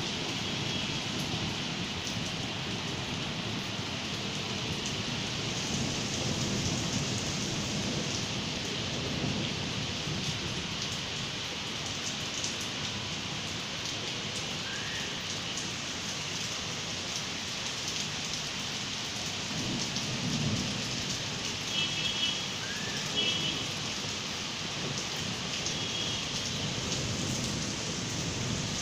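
Spring rain falling steadily, an even hiss of drops on surfaces. A low rumble swells about two-thirds of the way through.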